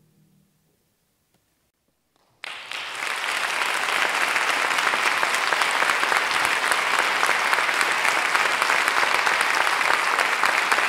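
The faint tail of a choir's final chord fades out, then after a short silence an audience starts applauding about two and a half seconds in, quickly growing to steady, full applause.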